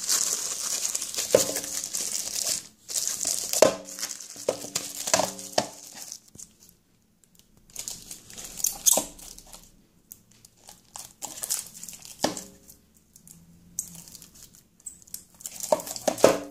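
Plastic packaging bags crinkling and rustling as they are handled around a TV box, in several bursts with short pauses and a few sharp crackles.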